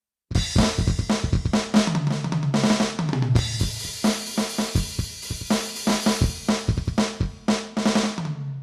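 Aroma TDX-16S electronic drum kit's sound module playing a drum pattern of kick, snare and cymbal hits with tom fills. It starts about a third of a second in and stops just before the end, and in the middle a run of tom hits steps down in pitch.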